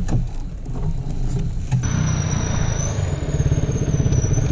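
Motorcycle engine running at idle with an even, pulsing exhaust beat. The sound changes abruptly about two seconds in, after which a thin high whine is also heard.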